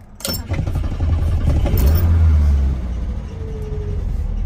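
1971 BMW 2002's carburetted four-cylinder engine starting on the key with the choke left in, heard from the driver's seat: it catches about a quarter second in, runs up for a couple of seconds, then settles to a steady idle at about 1000 rpm.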